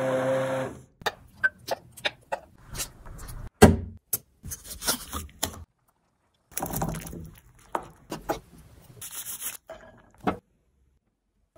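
Morphy Richards Pronto hand blender running in a glass bowl of sauce, cutting off about a second in. After that come sparse kitchen knocks, taps and clatters, with one loud thump a few seconds in.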